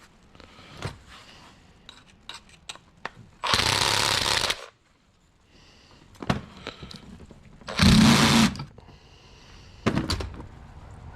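A power tool run in two short bursts of about a second each, the second with a low motor hum, amid scattered clicks and knocks of metal parts being handled while a paintball marker is taken apart.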